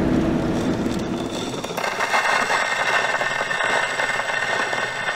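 A car running on the road, heard from inside the cabin; about two seconds in it cuts to the crackling hiss of a wind-up gramophone's needle on a spinning record, with one sharp click about three and a half seconds in.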